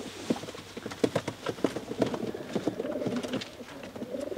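Racing pigeons cooing, over a scatter of sharp knocks and clicks.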